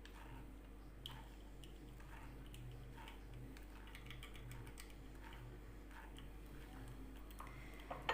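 Faint, scattered clicks and light taps of kitchen utensils as a hot herbal drink is strained through a sieve, with one sharper click near the end. A steady low hum runs underneath.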